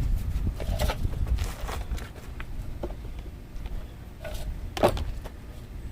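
A handful of light metallic clinks and knocks, a few with a short ring, from tools and brake caliper parts being handled. The loudest comes near the end. A low rumble runs underneath.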